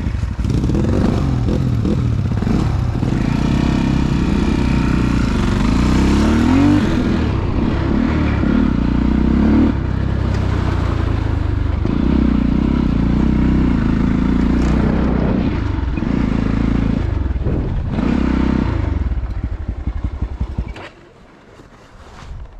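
Dirt bike engine running loud under way, its pitch rising and falling with throttle and gear changes. The engine sound drops away sharply about a second and a half before the end.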